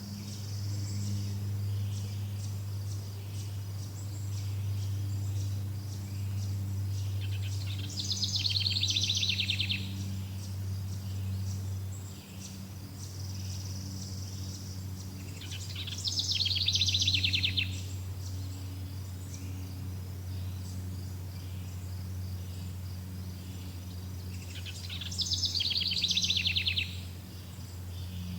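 A songbird sings a rapid trilled phrase of about two seconds three times, roughly every eight to nine seconds. Between the phrases there is a steady high chirring of insects and a low steady hum.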